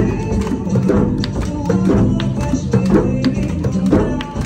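A group of djembe drums played together in a steady, driving rhythm, with a sharp accented slap about once a second.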